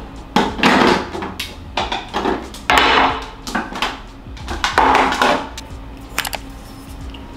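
Household handling noise: dishes and hard wooden surfaces clattering and knocking in three bursts about two seconds apart, with a few lighter clicks near the end.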